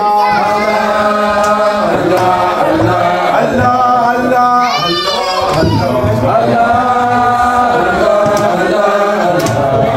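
Group dhikr chanting: a lead male voice and the gathering singing a repeated devotional chant together, unaccompanied. About halfway through, a higher voice rises briefly above the group.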